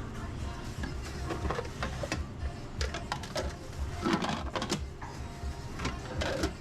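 Restaurant kitchen clatter: sharp clicks and knocks of utensils and dishes over background music with a steady low beat.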